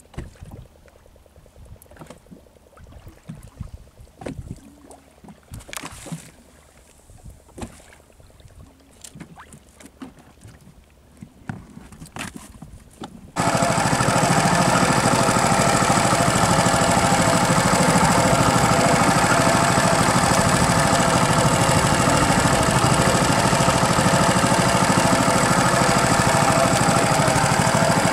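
Scattered faint knocks and handling sounds, then about halfway through a fishing boat's engine cuts in suddenly, running loud and steady.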